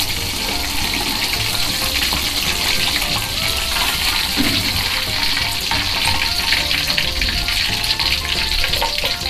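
Panko-battered banana fritters deep-frying in hot oil in a wok: a steady, dense crackling sizzle. Music plays faintly underneath.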